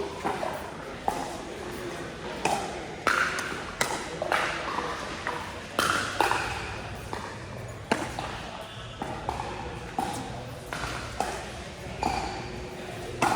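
Pickleball paddles striking a hard plastic ball, with sharp pocks at irregular intervals of a second or two, over background voices.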